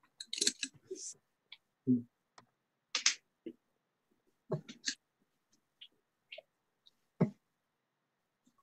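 Darts striking a bristle dartboard: a few sharp knocks spread out over several seconds, the loudest about seven seconds in, over faint room noise.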